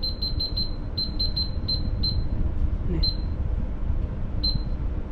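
Oven control panel beeping as its buttons are pressed to set the temperature and cooking time: about ten short, identical high beeps, quick runs in the first two seconds, then two more spaced out, over a steady low hum.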